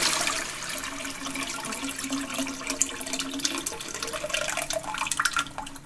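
Rushing, gurgling water with a steady low hum, dying away and fading out at the end.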